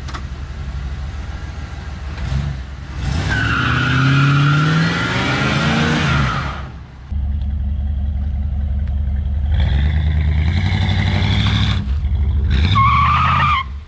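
1993 Chevrolet Caprice wagon's 305 small-block V8 under hard throttle: its pitch rises, drops off briefly about seven seconds in, runs steadily, then climbs again near the end.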